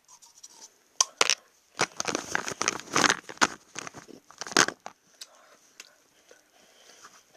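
Chocolate wrapper crinkling and tearing as it is unwrapped, a dense crackling run with sharp snaps from about a second in until nearly five seconds, then only faint rustles.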